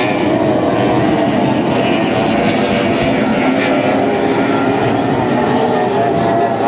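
Formula 1 racing powerboats' outboard engines running together: several overlapping engine notes that waver slightly, forming one dense, steady, loud sound.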